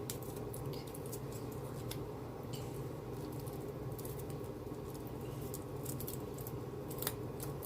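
Faint, scattered small clicks and scratches of hands handling food and utensils on a kitchen counter, over a steady low hum.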